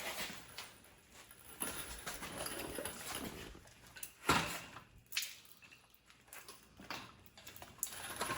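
Scattered knocks and clunks of tools and heavy parts being handled, the loudest a sharp knock about four seconds in.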